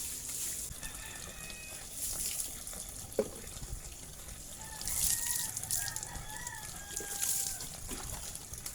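A rooster crowing: one long, wavering crow starting about five seconds in, with a fainter crow earlier. Water splashes and pours in short bursts every couple of seconds.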